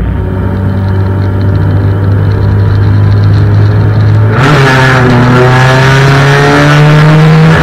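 Race car engine running at a steady note, then about four seconds in it gets louder and revs up, climbing steadily in pitch as the car accelerates.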